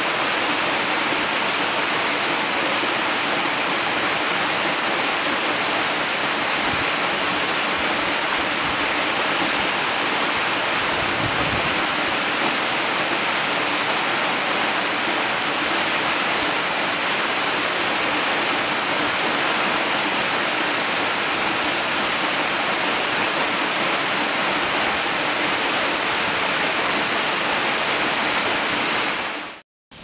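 Waterfall pouring down onto rocks: a steady, dense rush of falling water. It cuts off suddenly just before the end.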